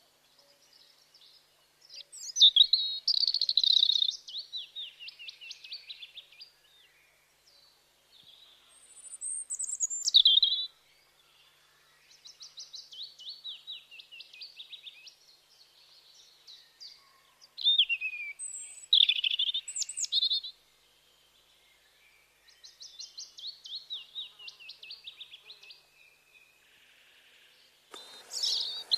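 Songbirds chirping in phrases of rapid repeated high notes, each phrase lasting a few seconds with short pauses between, and a few whistled notes sliding downward. A short burst of noise comes near the end.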